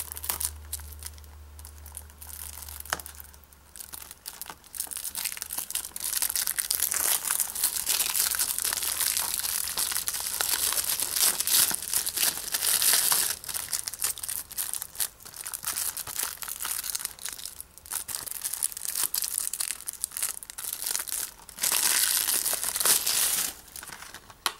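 Clear plastic shrink-wrap being torn and peeled off a Blu-ray case, crinkling and crackling irregularly: quieter picking at first, then a long loud stretch of crinkling in the middle and another short loud stretch near the end.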